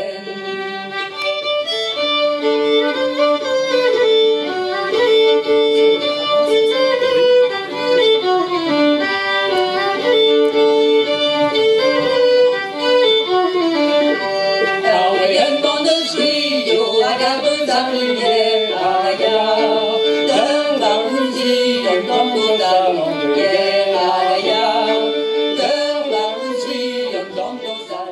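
Two violins playing a folk tune together, with a change to a new section of the tune about halfway through.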